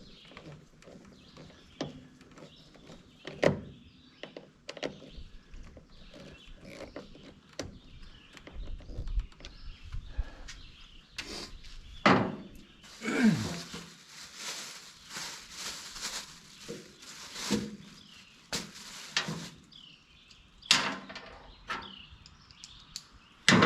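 Scattered clunks, clicks and scrapes of tools and metal parts being handled while a push mower is reassembled. There is a short creak about halfway through and a rougher stretch of scraping after it.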